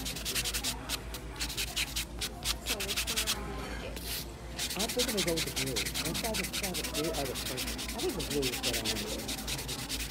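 A nail buffer block rubbed in rapid back-and-forth strokes across an acrylic stiletto nail, shaping and smoothing it: a dry, scratchy rasping. It stops for about a second some three and a half seconds in, then resumes.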